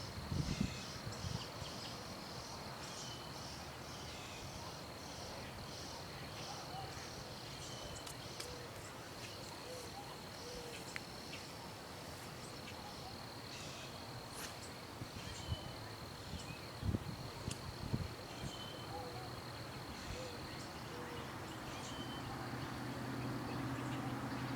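Outdoor ambience dominated by a steady, high-pitched insect trill, with scattered short chirps and a couple of soft thumps. A low hum comes in near the end.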